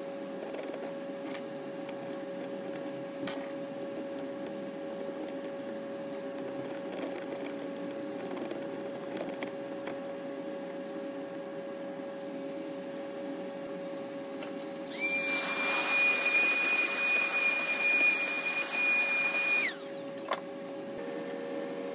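A 3D printer's fan hums steadily, with a few small clicks of plastic parts as the extruder cover is handled. About two-thirds of the way in, a small electric motor gives a loud, high, even whine for about five seconds and then stops abruptly.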